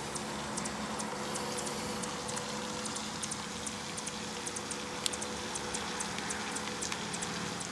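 Steady mechanical hum with a few held tones over a background hiss, and faint high clicks two or three a second, one sharper click about five seconds in.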